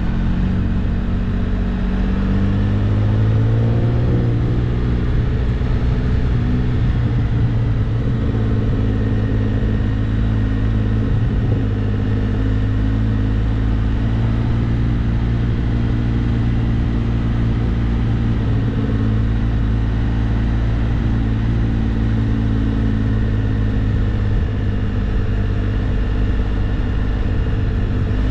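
Can-Am Spyder F3's Rotax 1330 inline three-cylinder engine running at low road speed, heard from the handlebar. The engine pitch rises a little about three seconds in as it picks up speed, then holds steady.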